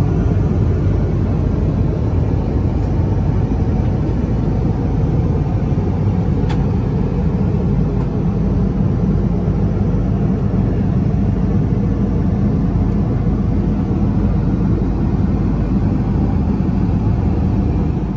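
Steady cabin noise of an Airbus A330-300 in flight: an even, deep rush of airflow and engines, with a few faint clicks.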